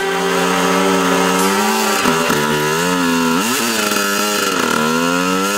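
KTM dirt bike engine running at high revs, its pitch dipping and climbing again a few times as the throttle is worked.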